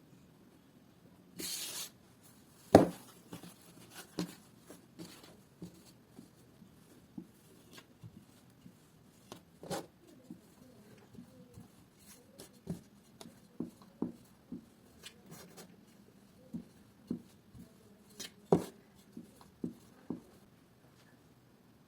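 Soft, irregular taps and knocks of hands and utensils working dough at a kitchen counter. A short rustle comes about one and a half seconds in, and one sharp clack just after.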